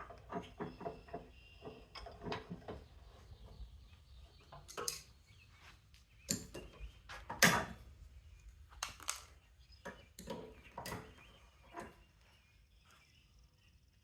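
Irregular clicks and knocks of hand tools and hard plastic plug pieces as electrical plugs are broken down in a vise with channel-lock pliers to pull out their brass prongs. One sharper knock comes about seven and a half seconds in.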